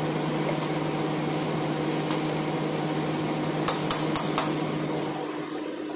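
Steady low mechanical hum in a kitchen. A little past halfway, a plastic container is handled with four quick, sharp rustles.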